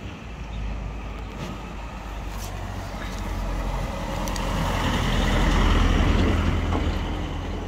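A road vehicle passing on the street: a steady low engine-and-tyre rumble that grows louder, peaks about six seconds in, then starts to fade.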